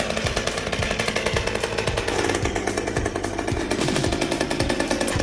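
Chainsaw running, with a fast, even pulsing.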